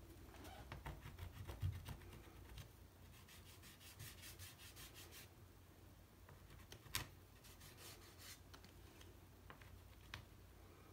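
Faint scratching of a soft pastel stick in quick repeated strokes on watercolour paper, with a finger rubbing the pastel into the paper. A single sharp click about seven seconds in.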